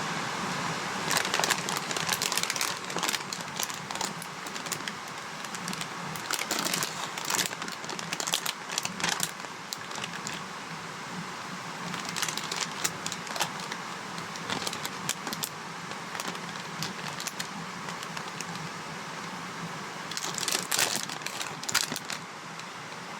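Plastic bag of nacho corn chips crinkling and crackling as it is handled, in irregular bursts of sharp crackles with quieter stretches between.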